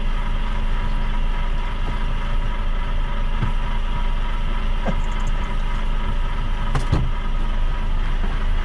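Lorry's diesel engine idling steadily, with a few faint knocks over it.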